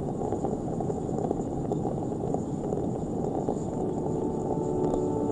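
A dense low rumble, with steady sustained musical tones at several pitches coming in about four seconds in.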